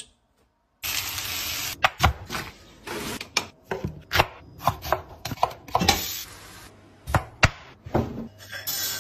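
A quick run of kitchen food-prep sounds: a knife chopping through food onto a wooden cutting board, and containers and utensils knocking and clattering, with stretches of hiss. It starts after a short silence.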